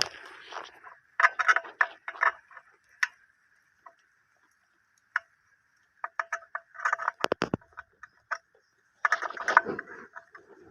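Clusters of sharp clicks and clattering knocks of hard parts being handled, over a faint steady high tone.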